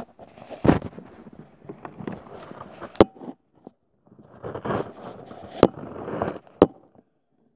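Rustling and handling noise on a phone's microphone, with four sharp cracks scattered through it.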